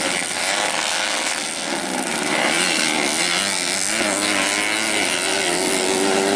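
Small underbone (bebek) racing motorcycles revving hard on a dirt grasstrack, several engines rising and falling in pitch as riders accelerate and back off.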